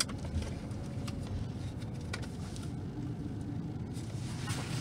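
Car engine idling, heard from inside the cabin, with a couple of faint clicks about a second and two seconds in.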